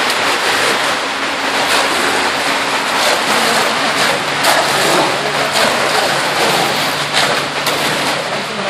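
Wet concrete sliding down a metal chute in a steady rushing wash, with an engine running low underneath. Shovels and rakes scrape through the poured concrete now and then.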